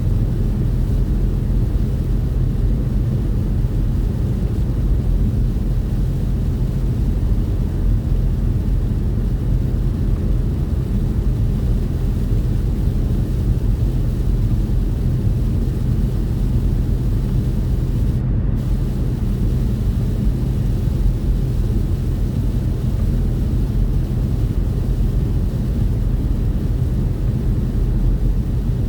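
Steady low drone of a truck's engine and road noise heard inside the cab while driving, with a constant hum underneath.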